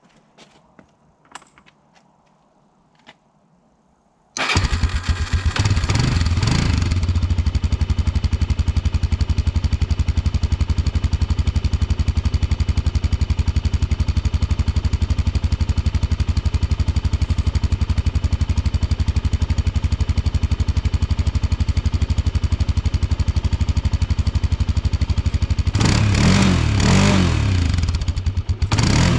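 Honda TRX300EX ATV's single-cylinder four-stroke engine starting up about four seconds in, revving briefly as it catches, then idling steadily through the exhaust. Near the end the throttle is blipped twice.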